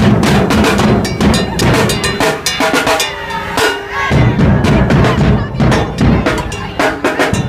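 Drum-heavy music: rapid snare and bass drum strikes in a fast rhythm, with a pitched part running over them.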